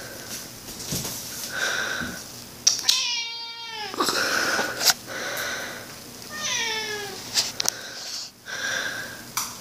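Tabby cat meowing twice, about three seconds in and again near seven seconds; each meow slides down in pitch. A few short clicks fall between the meows.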